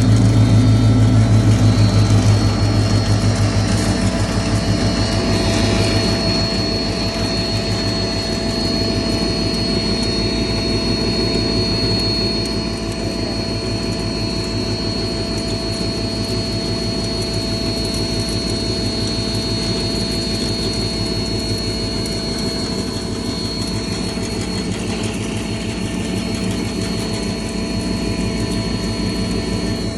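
Double-chamber chana dal grinding mill running steadily, a deep hum with a steady high whine over it.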